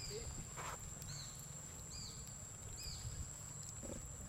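Outdoor ambience: three short high chirps, about a second apart, over a steady high-pitched whine and a low rumble. A single soft knock comes just under a second in.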